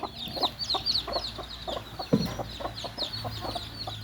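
A flock of chickens clucking continuously, with many short, high, falling peeps over the clucks. One louder knock about two seconds in.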